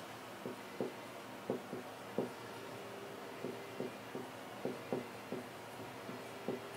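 Whiteboard marker drawing on a whiteboard: about a dozen short strokes of the tip against the board, one a little longer near the middle.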